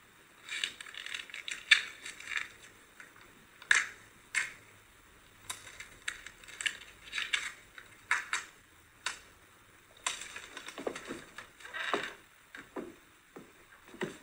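A match scraped again and again against a matchbox in short, scratchy strikes that fail to catch, the sign of shaking, nervous fingers. A few duller taps come near the end.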